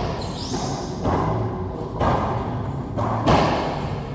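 Racquetball rally: the rubber ball smacked by racquets and off the court walls, several sharp hits about a second apart, each echoing in the enclosed court.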